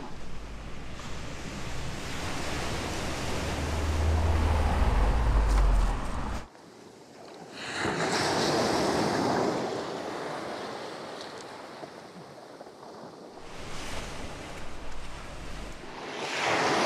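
Surf breaking and washing up a pebble beach in swells, with wind rumbling on the microphone. The sound drops out suddenly about six and a half seconds in, then the waves surge back.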